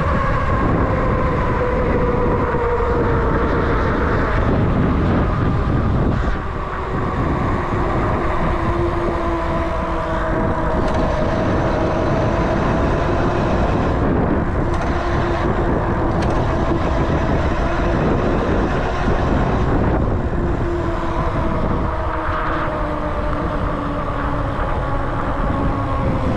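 A vehicle on the move: steady rumble and rushing noise, with several whining tones that slowly rise and fall as its speed changes.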